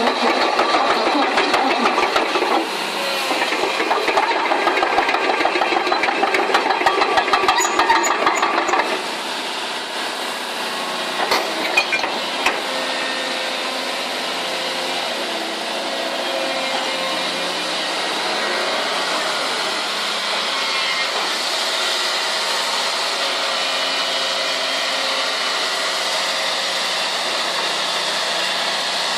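Hyundai Robex 300LC-7 crawler excavator running. For about the first nine seconds there is dense clattering and knocking over the engine. After that the engine runs more steadily, with a few sharp clicks shortly after.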